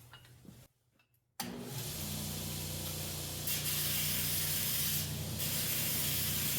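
Belt grinder starting up after about a second and a half and running with a steady motor hum, with a grinding hiss as the low-carbon steel of a pipe wrench handle is pressed to the belt for a spark test. The hiss grows louder about halfway through and eases briefly near the end.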